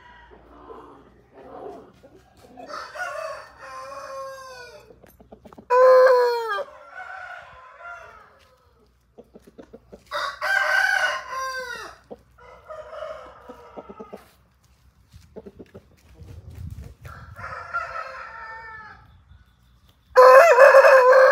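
Aseel roosters crowing several times, with quieter, shorter calls between the crows; the loudest crow comes near the end.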